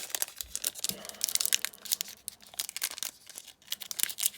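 Pokémon booster pack's foil wrapper crinkling and being torn open, a run of quick, irregular crackles.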